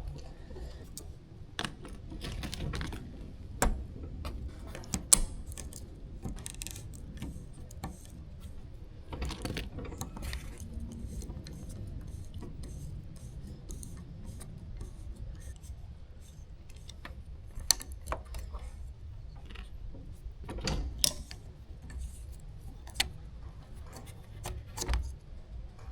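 Hands working on small metal tractor parts, taking off a screw and nut: scattered light clicks, taps and metallic rattles, with a few sharper clicks.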